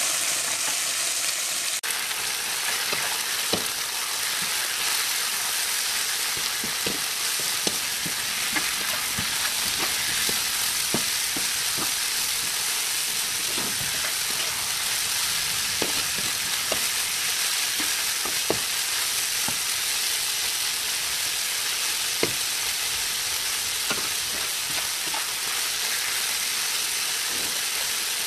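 Bánh xèo filling of jicama and carrot stir-frying in hot oil in a pan: a steady sizzle, with the stirring utensil knocking against the pan now and then.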